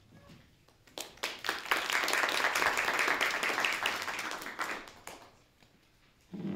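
Audience applauding, starting about a second in, swelling, then dying away about five seconds in. A short low thud near the end.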